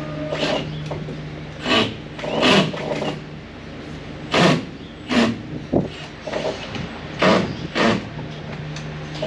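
A cordless drill-driver run in short bursts, about seven in all, backing out screws that hold boards to a barn wall. A steady low hum runs underneath.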